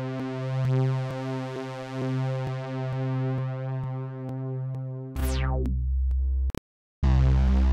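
Spectrasonics Omnisphere 3 software synthesizer patches being previewed. First a sustained analogue-style '80s synth sound holds steady; about five seconds in a bass patch comes in with a fast falling sweep and deep bass. It cuts out briefly, then a pulsing bass sound starts near the end.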